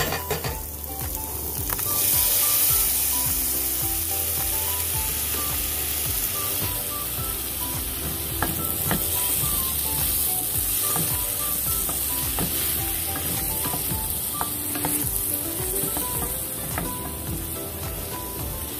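Onions, tomatoes and shrimp sizzling as they sauté in a stainless-steel pot, stirred with a wooden spoon that knocks now and then against the pot. The sizzle gets louder about two seconds in.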